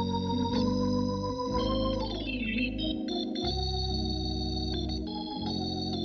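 Jazz organ trio played back from a cassette tape recording: the organ holds sustained chords over a deep bass, with a quick falling glide down the keys about two seconds in.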